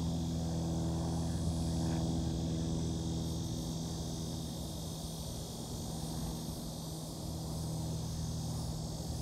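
A steady low motor hum, with a constant high insect buzz over it.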